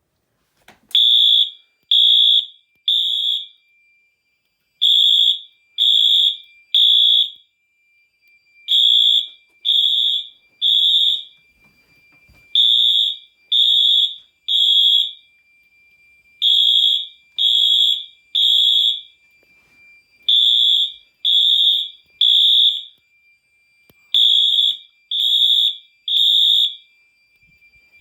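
Wheelock MT electronic fire alarm horn/strobes sounding a code-3 (temporal-three) horn pattern: three loud high-pitched beeps about a second apart, a short pause, then again, starting about a second in and repeating seven times. The temporal-three pattern is the standard fire evacuation signal. A faint steady high tone runs beneath the beeps.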